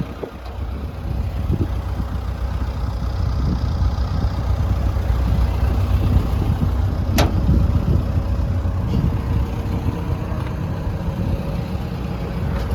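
Komatsu PC160LC-7 excavator's diesel engine idling steadily, with a single sharp click about seven seconds in.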